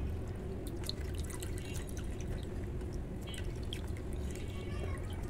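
Water dripping and splashing into a bowl as a wet hand rinses a face mask off the face: scattered small drips and splashes.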